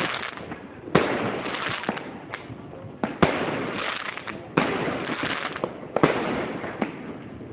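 Aerial fireworks bursting overhead. About four loud bangs come every second and a half or so, with smaller pops between them. After each bang comes a crackling wash of noise that fades away.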